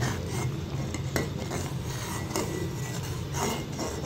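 A metal spoon stirs a pot of thick rice kheer (milk and rice pudding) and scrapes the pot at irregular intervals, with one sharper clink about a second in. The scraping along the bottom keeps the pudding from sticking. A steady low hum runs underneath.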